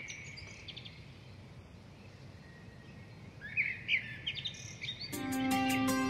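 Bird chirps in short clusters over a soft background hiss, opening a music track. About five seconds in, the music comes in with sustained held chords.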